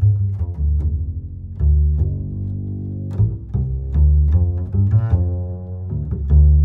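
Background music with a low plucked bass line and quick string notes.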